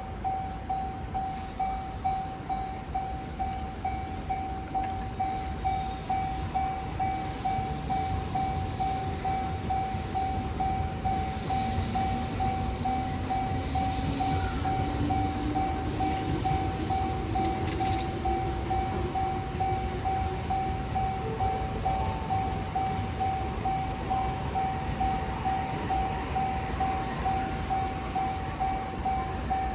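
Japanese railway level-crossing warning bell ringing steadily, about two strikes a second, as the crossing closes for an approaching freight train. A faint whine rises in pitch through the middle.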